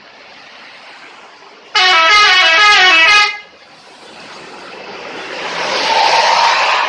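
Bus telolet horn, a multi-tone musical air horn, playing a quick run of notes stepping down in pitch for about a second and a half. After it comes a rush of vehicle noise that grows steadily louder.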